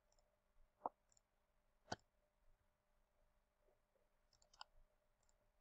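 Near silence with a few computer mouse clicks: two sharp ones about one and two seconds in, and a small cluster near the end.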